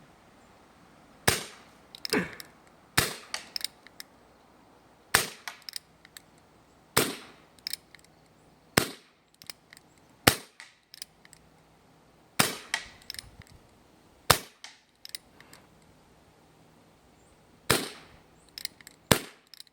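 BB gun firing about a dozen sharp shots, spaced one to two seconds apart with a few longer gaps. Each shot is followed by a few lighter clicks.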